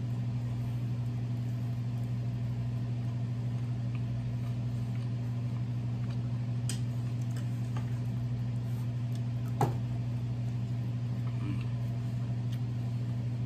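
A steady low hum, with two short clicks of cutlery against a plate, the louder one near the end.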